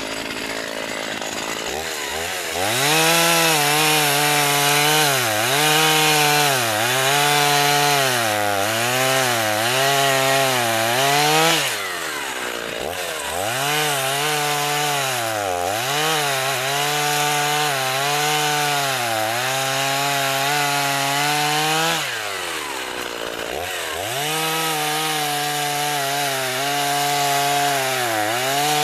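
1987 Husqvarna 50 Special two-stroke chainsaw cutting through a log at full throttle. The engine pitch sags and recovers about once a second as the chain loads up in the wood. It runs lower for the first couple of seconds, then revs up, and eases off briefly about twelve seconds in and again about twenty-two seconds in before cutting again.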